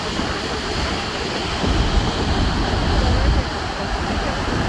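Steady rush of Niagara's American Falls, a dense even noise with a deep low rumble.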